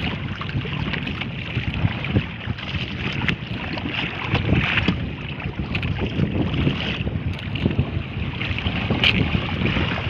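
Wind buffeting the microphone over sea water lapping and splashing against a wooden outrigger fishing boat, with a few light clicks.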